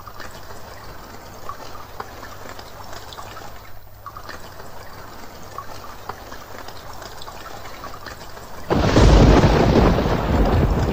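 A steady rain-like hiss with a low hum, then about nine seconds in a sudden, much louder rumble, like a thunderclap.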